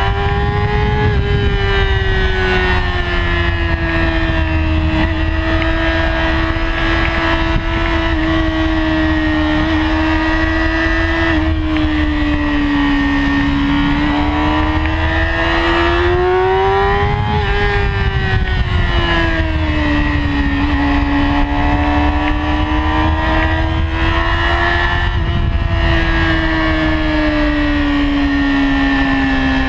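2008 Yamaha R6's 599 cc inline-four engine running hard at speed, its pitch swelling and sagging slowly several times as the throttle is opened and eased through the corners, over a steady low rush.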